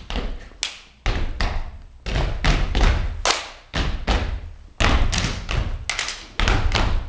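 A group doing a stepping routine, stomping their feet on a wooden stage floor in a steady rhythm of about three stomps a second.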